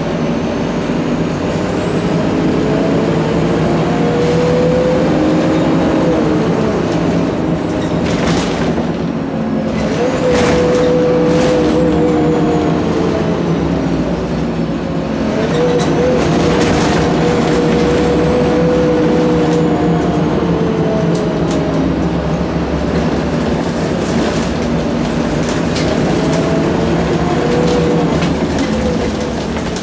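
Cabin sound of a Volvo 7700 city bus under way: the Volvo D9C six-cylinder diesel and Voith automatic gearbox whining, the pitch climbing and then dropping away several times as the bus speeds up and eases off, over a steady low drone with a few brief rattles.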